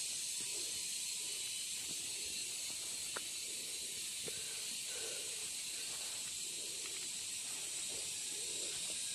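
A steady, unbroken high-pitched hiss, with a faint tick about three seconds in.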